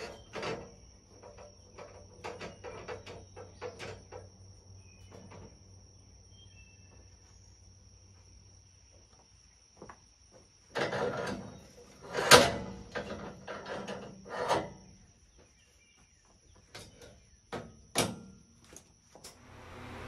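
Scattered knocks and clatter as a utility pole is handled on the sawmill's steel bed and bunks, the loudest cluster about eleven seconds in and another near the end. A steady high insect drone runs underneath.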